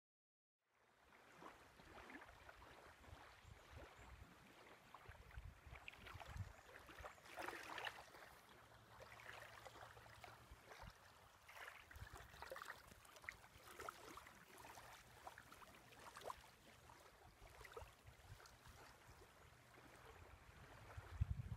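Faint lakeshore sound: small waves lapping and trickling on a sand beach, with an uneven low wind rumble on the microphone that swells briefly near the end.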